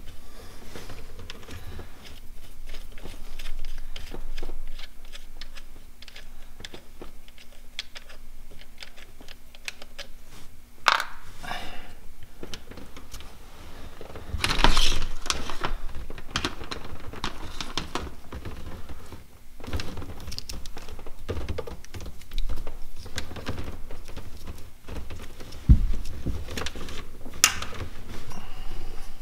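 Small clicks, rattles and knocks of hands fitting crimped wire connectors onto boat battery terminals and moving wires around. There are a few louder knocks and rustles, the biggest cluster about halfway through.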